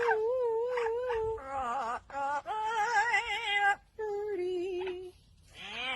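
A parrot singing a tune in a human-like voice: a string of held notes with a wavering vibrato, broken by a few short pauses.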